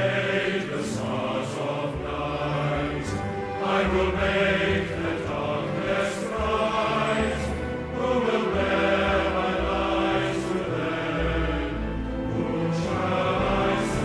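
Choral music: voices singing long held notes.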